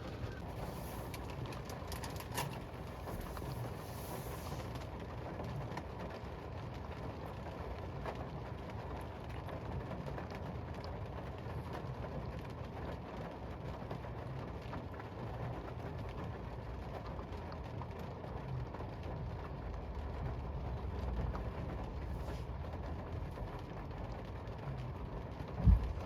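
Rain on a car, heard from inside as a steady low rumble with faint scattered ticks of drops. A sharp thump comes near the end.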